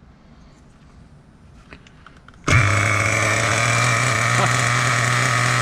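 Small nitro engine of a Kyosho Inferno GT2 RC car catching about halfway through and then running steadily at idle with a high buzzing whine, after a few faint handling clicks. It starts readily despite not having run in a week.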